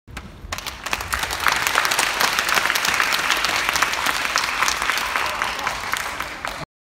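Audience applauding, building up within the first second and cut off abruptly near the end.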